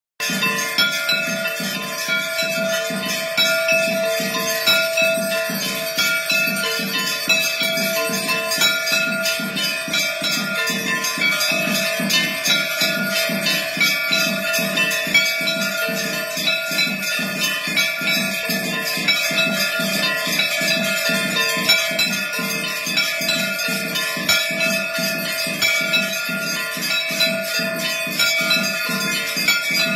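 Temple aarti: bells ringing and jingling without pause over a steady beat of about two or three strokes a second.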